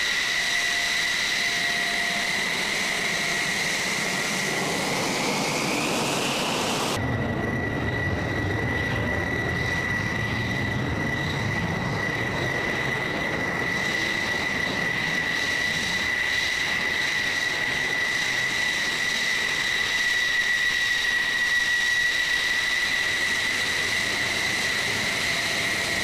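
F-16 jet engine running with a steady high-pitched turbine whine. The pitch rises briefly about five seconds in, then cuts off abruptly and the whine carries on with more low rumble underneath.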